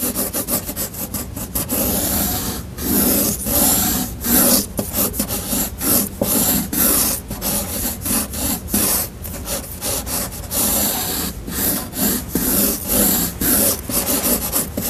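Marker pen scratching across paper in quick repeated strokes as dense lines are hatched, several strokes a second in runs with brief pauses between them.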